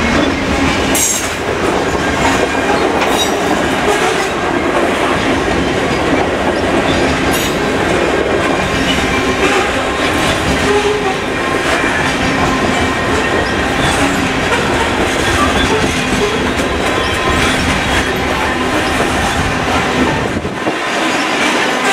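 Freight train of covered grain hopper cars rolling past close by: a loud, steady rumble and clatter of steel wheels on the rails.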